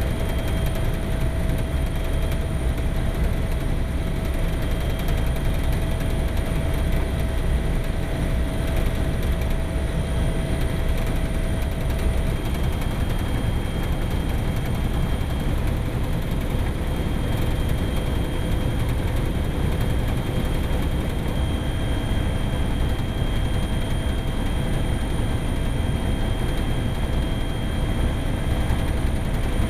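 Steady, loud engine noise: a heavy low rumble with a constant high whine over it, unchanging throughout.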